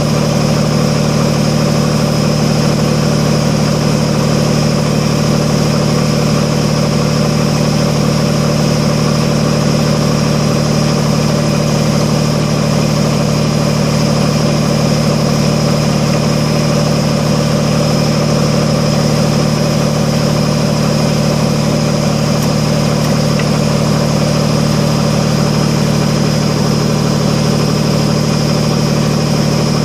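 Kubota BX25D compact tractor's three-cylinder diesel engine running steadily at a constant speed.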